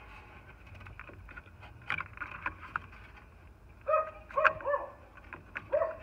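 A dog gives a few short, pitched yelps about four seconds in and once more near the end, over light clicks and handling noise.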